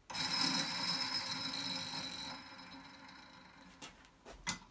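Crankshaft ball bearing spun by hand, running with a rough, grating whir that starts suddenly and fades over about three seconds as it coasts down, followed by a few light clicks near the end. The rough running is the sign of a worn, damaged bearing.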